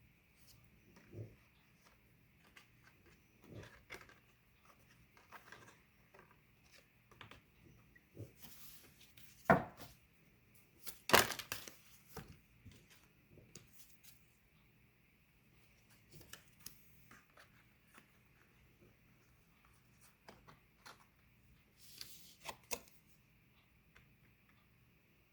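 Oracle cards being handled on a table: scattered soft rustles and light taps, with two sharper knocks around the middle and a short clatter near the end.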